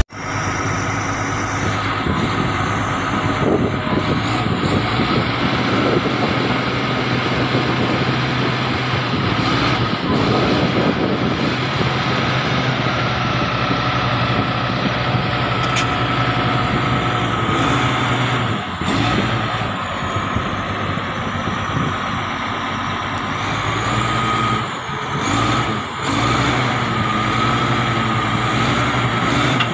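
Komatsu D85E-SS crawler bulldozer's diesel engine running steadily as the dozer climbs the ramps onto a lowbed trailer, with a steady whine above the engine note.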